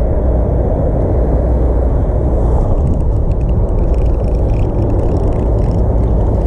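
A steady low rumble. Faint rapid ticking joins about halfway through.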